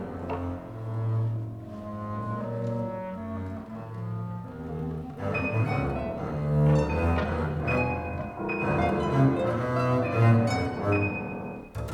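Contemporary chamber music for clarinet, violin, double bass, guitar and piano: long held low double bass notes, the texture growing denser about halfway through as high held tones and more notes join in.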